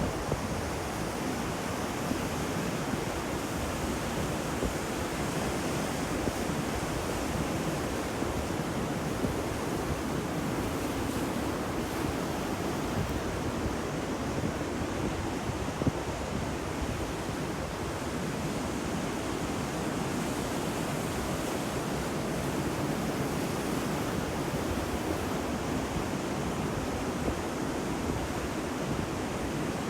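Ocean surf: waves washing on the shore in a steady, dense rush, with little rise and fall.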